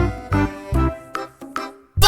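Background music with a steady bass beat, thinning out and fading almost to nothing near the end.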